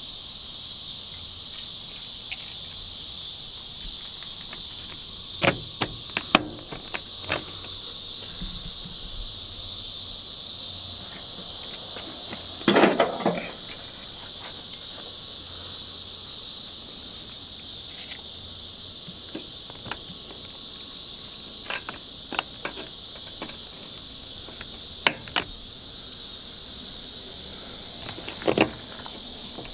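Steady high-pitched insect chorus, crickets, throughout. Scattered short knocks and clicks from hand work on the truck door cut through it, with a longer rattle of them about thirteen seconds in.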